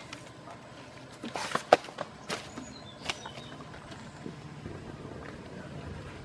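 Asian elephant chewing and snapping fibrous banana stalks: a run of sharp cracks and crunches in the first half, the loudest about two seconds in.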